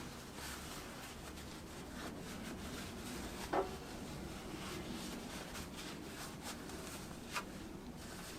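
Quiet rubbing and handling noise from parts being worked by hand, with a sharp ringing clink about three and a half seconds in and a lighter click near the end.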